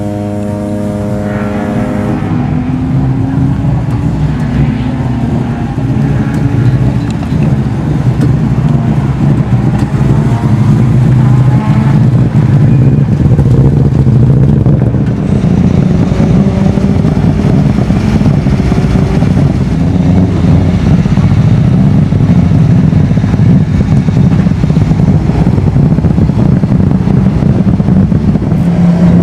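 Rally car engine running and being lightly revved, its pitch rising and falling; the source is most likely the Subaru Impreza's flat-four. A steady low drone fades out over the first two seconds.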